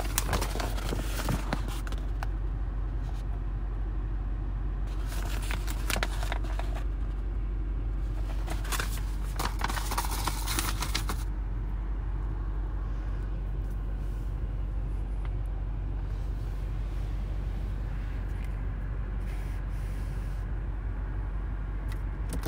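Steady low drone of a 2022 BMW X6M heard from inside the cabin on the move, with several short bursts of scraping noise, the longest around the middle.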